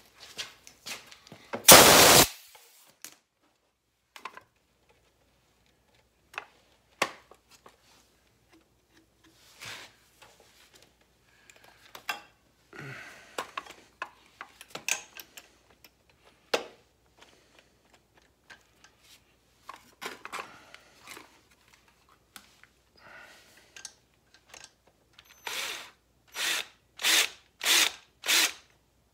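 Power drill run in short bursts, a chamfer bit cutting the edge of a drilled hole before it is tapped for a thread-repair insert. One loud burst about two seconds in, then handling clicks and scrapes, then five quick bursts near the end.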